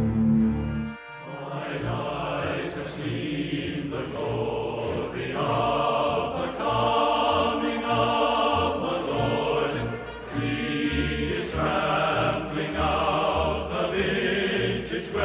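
Background music. A piece with a held low note cuts off abruptly about a second in, and a new piece follows with wavering pitched parts over a regular low beat.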